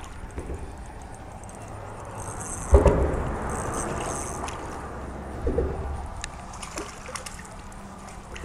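A hooked crappie being reeled in on a spinning reel, with water sloshing as the fish comes up to the surface. A loud knock a little under three seconds in and a smaller one about five and a half seconds in.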